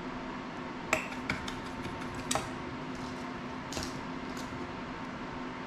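Small hard clicks and clinks of tools and parts being handled on a work table: a few about a second in, a sharper one a little after two seconds, and a couple near four seconds. Under them runs a steady low hum.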